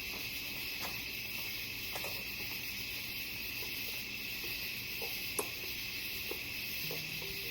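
Steady high hiss of outdoor background with a few light clicks and knocks from handling plastic animatronic parts, one sharper click about five seconds in.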